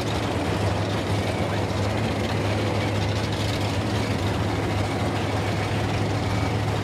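Engine idling, a steady low drone with no revving or changes, over general trackside noise.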